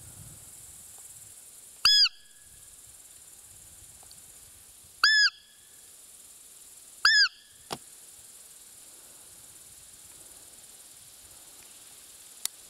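Three short, loud squeaks blown on a Butov roe deer call, each rising then falling in pitch. They imitate a roe doe's peep to lure a rutting buck. A faint click follows the third.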